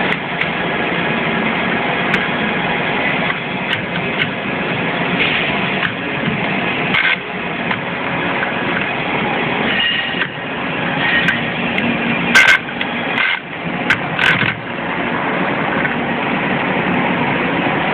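Old workshop machine with an exposed bevel-gear clutch running steadily, a continuous mechanical drone, with a couple of sharp clicks about two-thirds of the way through.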